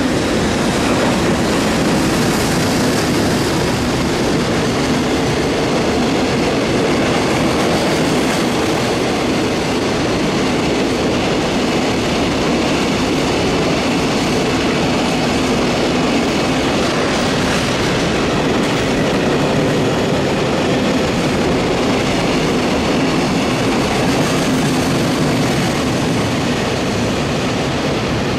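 A long electric-hauled container freight train, headed by an EH500 electric locomotive, passing close by at speed: loud, steady noise of steel wheels running on the rails as the container wagons go by.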